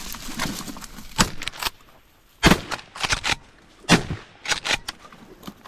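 Shotgun shots fired at incoming ducks: two loud shots about a second and a half apart, with smaller sharp clicks and knocks between and after them.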